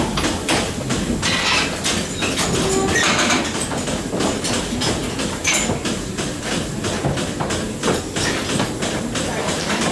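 Goat milking parlour: machinery running steadily under frequent, irregular metal clanks and knocks.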